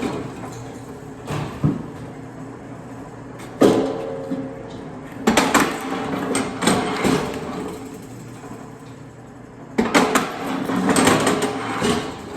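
Firewood being split and handled: a series of sharp wooden knocks and clatters, a loud one every second or two, some followed by a short ringing tone.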